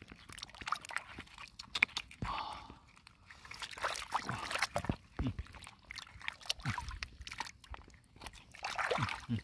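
Irregular clicks, knocks and wet squelching thuds of hands working through mud and shallow water.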